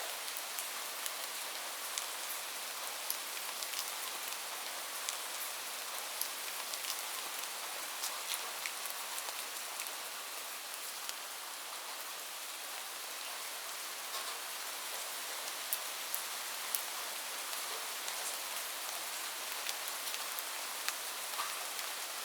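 Light rain falling steadily, an even hiss with many separate drop ticks and taps scattered through it.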